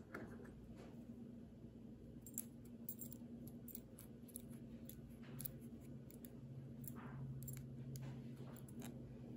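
Faint small clicks and light scraping as a cotton swab rubs wax onto the threads of a metal screw held over a metal tin, over a steady low hum.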